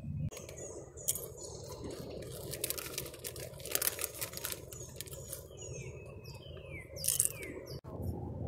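Crackling, crinkling clicks of a thin aluminium drink can being squeezed in the hands, in clusters through the first half and again near the end. Birds give several short falling chirps between them.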